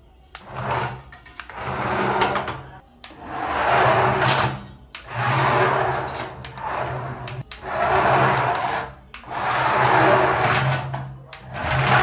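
Toy RC cars' small electric drive motors and gears whirring in bursts of a second or two, about six times, as the cars are driven across a table top.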